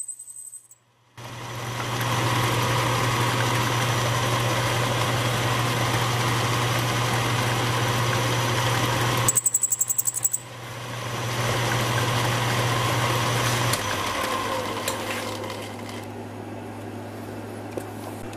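Atlas 618 metal lathe running while a high-speed-steel tool bit plunges a snap ring groove inside a stainless steel housing: a steady cutting noise over the motor hum, starting about a second in. About nine seconds in there is a brief loud, rapidly pulsing squeal of the tool chattering, and the cutting dies down near the end. The stainless is wearing the bit down.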